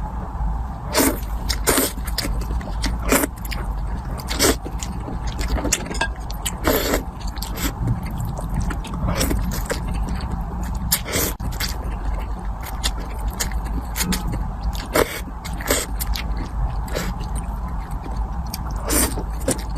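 Close-up eating sounds: irregular wet clicks and smacks of chewing, every second or two, over a steady low hum.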